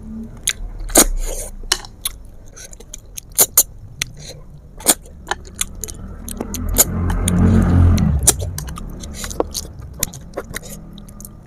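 Snail shells and utensils clicking and clinking over and over during a meal of river snails. About six seconds in, a vehicle passes, a low rumble that swells and fades over two seconds and is the loudest sound.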